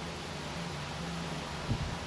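Steady background hiss with a faint low hum, and one short, dull low thump near the end.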